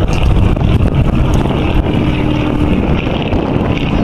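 Boeing-Stearman Model 75 biplane's radial engine running overhead, mixed with heavy wind buffeting on the microphone.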